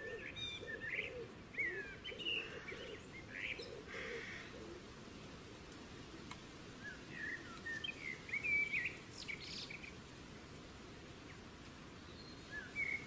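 Birds chirping and singing faintly: quick rising and falling notes come in two bunches, over the first four seconds or so and again around seven to nine seconds in, over faint outdoor background noise.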